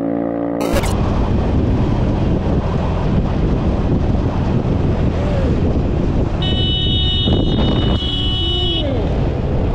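Wind and road noise on a motorcycle rider's camera while riding, with a vehicle horn sounding steadily for about two and a half seconds past the middle.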